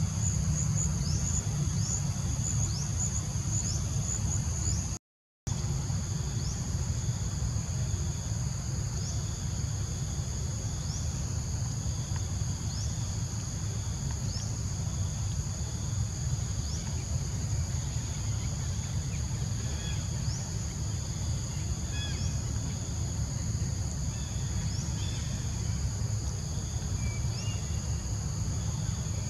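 Steady high-pitched drone of insects with a short rising chirp repeating every second or two, over a steady low rumble. The sound drops out briefly about five seconds in.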